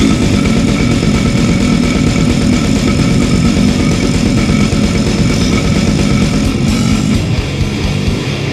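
Death metal song: heavily distorted electric guitars over fast, dense drumming, with a cymbal crash right at the start and a change to a new, lower riff about seven seconds in.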